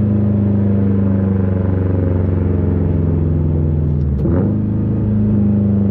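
Subaru STI's turbocharged flat-four engine running through a catless downpipe and a full-titanium Tomei exhaust: a loud, steady exhaust drone that breaks briefly a little over four seconds in, then settles back.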